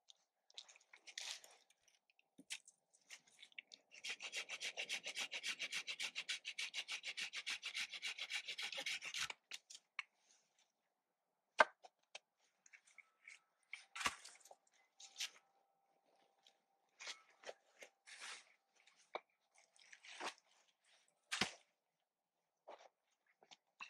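Birch poles being handled and laid onto a snow-shelter frame: a dense, fast rasping rub lasts about five seconds, then come scattered crunches, snaps and knocks.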